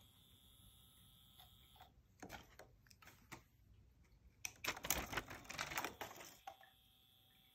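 Faint steady high whine of a solar-powered fluttering-butterfly toy's motor. It stops about two seconds in as the cat takes hold of the plastic butterfly. A few light clicks follow, then a burst of rapid clicking and rattling as the butterfly and its wire are bitten and tugged. The whine resumes near the end.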